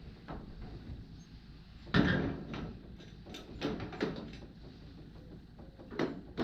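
A series of irregular knocks and thuds, the loudest about two seconds in, with several smaller ones following and another pair near the end.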